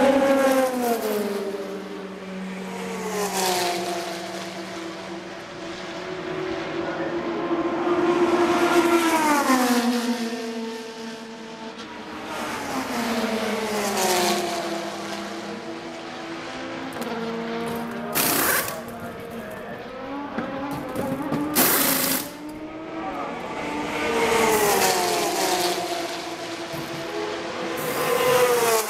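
Race car engines passing one after another, each engine note falling in pitch as it goes by, every few seconds. Two short loud bursts of noise come some way past the middle, about three and a half seconds apart.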